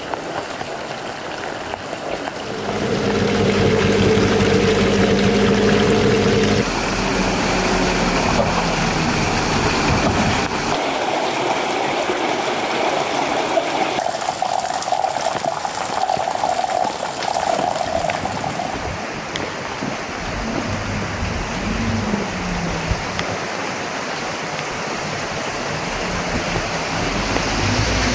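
Steady rain, with rainwater running and splashing off roof edges: a continuous hiss of falling water. A steady low hum joins it for a few seconds near the start.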